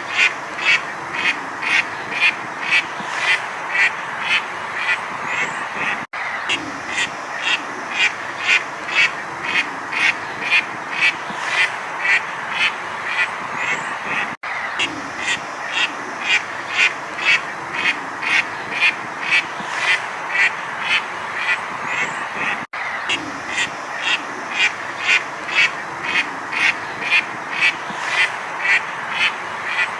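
Duck quacking in a steady, even series, about two quacks a second over a constant background hiss, with a brief dropout about every eight seconds.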